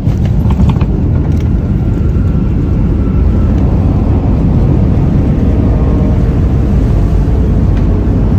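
Jet airliner heard from inside the cabin on its landing roll down the runway: a loud, steady roar of engines and runway rumble, with a few knocks in the first second.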